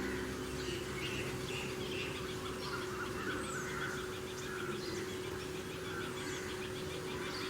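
Outdoor birdsong: many short, quick chirps and a few falling whistled notes from small birds, over a steady low hum and background noise.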